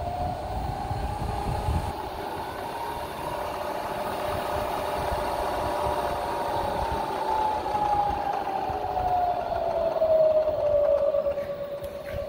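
Bridgeport Series 1 mill's variable-speed spindle running: its whine climbs steadily in pitch for about six seconds as the speed is dialed up, then sinks back down as it is dialed down again.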